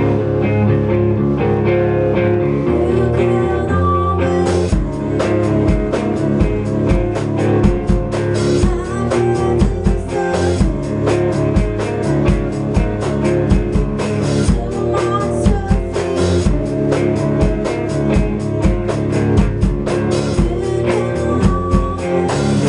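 Rock band rehearsal: an electric guitar played through an amp stack, with a drum kit. The drums are sparse for the first few seconds, then come in with a fast, steady beat about four and a half seconds in.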